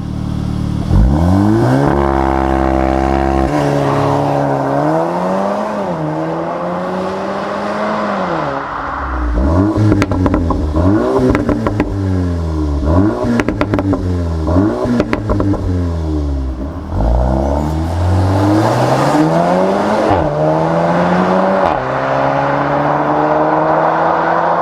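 VW T-Roc R's 2.0 TSI turbocharged four-cylinder with Akrapovic exhaust revving and accelerating through the gears. Its note climbs and drops back many times at each shift, with sharp exhaust crackles in the middle stretch and a long climb near the end.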